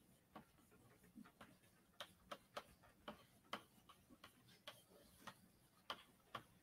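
Chalk tapping on a blackboard while words are written: about a dozen faint, irregular clicks.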